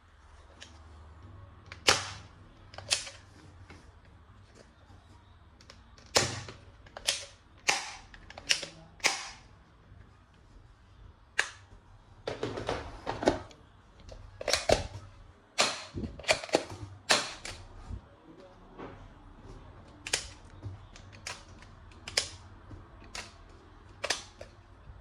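Plastic toy guns being handled and worked: irregular sharp clicks and snaps, some in quick clusters.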